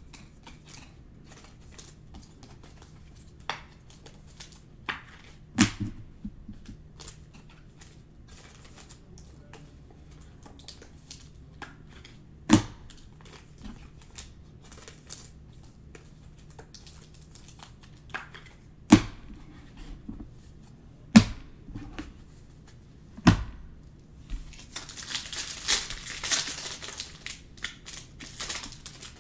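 Cards and packaging handled on a table, giving scattered sharp taps and knocks, then about four seconds of crinkling and tearing near the end as a foil Panini Mosaic basketball card pack is ripped open.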